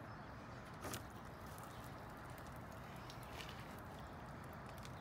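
A knife tip punctures a plastic gallon water jug, giving one short sharp click about a second in, over a faint steady hiss.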